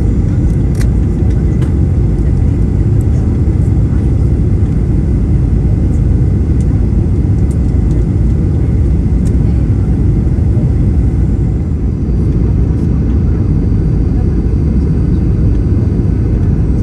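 Loud, steady low rumble of a Boeing 737-800's cabin noise, the CFM56 engines and airflow heard from a window seat. A faint high whine sits above it, with a few small clicks in the first two seconds.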